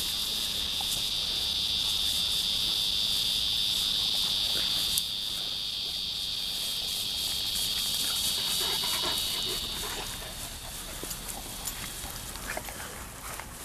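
A steady high-pitched insect chorus buzzing, weakening after about ten seconds, with light rustling as dogs move through tall grass.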